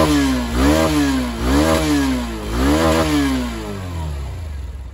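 Hero Xtreme 160R's 160cc single-cylinder engine blipped through its stock BS6 exhaust: the revs rise and fall in quick throttle blips about once a second, then drop away near the end.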